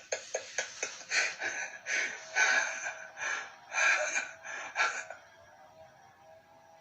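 Close-miked eating sounds: quick wet smacking clicks while chewing, then several loud slurping, sucking bursts as crab and mussels are eaten, stopping about five seconds in.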